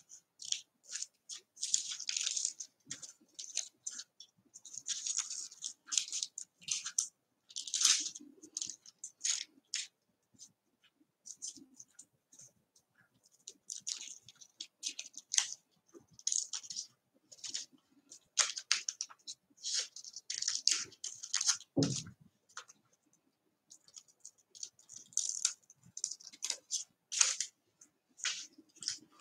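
Small scissors snipping through a sheet of paper in many short, irregular cuts, with the paper crackling as it is turned. A single low thump about three-quarters of the way through.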